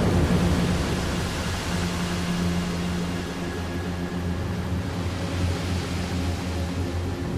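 Steady low drone of a boat's engine under a rushing noise of wind and water, as heard aboard at sea.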